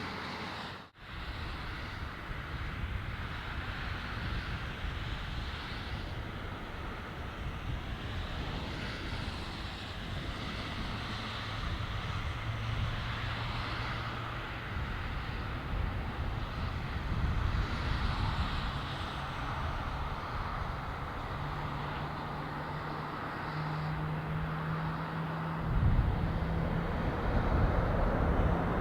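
After a brief gap, steady jet noise from a Boeing 777-200LR's engines as it lands, with wind. Near the end the sound turns suddenly louder and deeper, with a low hum rising in steps.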